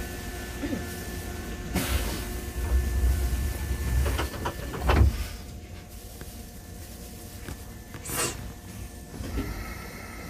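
Keisei 3500 series commuter train heard from inside the car: a steady low hum with faint steady tones, broken by several knocks and clunks, the loudest about five seconds in, after which the hum is quieter.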